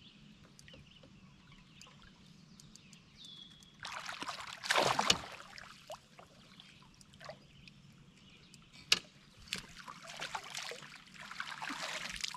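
A hooked smallmouth bass splashing at the surface beside the boat, loudest about four seconds in. A sharp knock follows, then water sloshing and dripping as the fish is scooped up in a landing net near the end.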